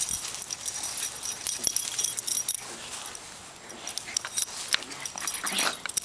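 Two small dogs, a Morkie puppy and a Yorkie, play-fighting on grass, their collar tags jingling in broken bursts as they tussle, with a few short dog noises in the second half.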